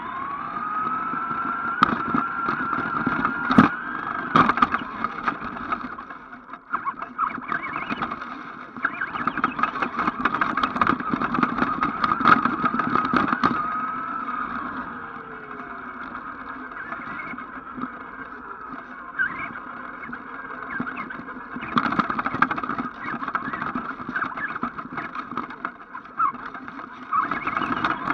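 Electric motor and gear drive of an ECX Amp RC truck whining as it drives, the pitch rising as it speeds up and wavering with the throttle, heard from a camera strapped to the truck. Tyre rumble runs under it, with sharp knocks and rattles as the truck bounces over the ground.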